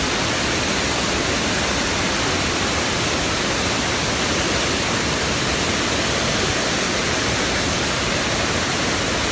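Waterfall pouring: a steady, loud rush of falling water with no change throughout.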